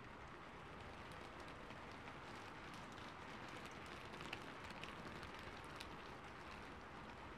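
Light rain falling: a soft, steady hiss with many small scattered drop ticks.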